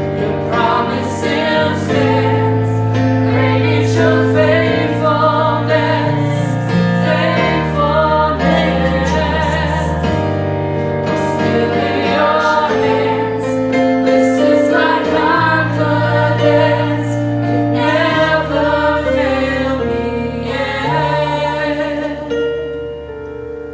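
Contemporary worship song: a group of singers, women's voices among them, sing over held low chords, fading toward the end to a softer keyboard pad.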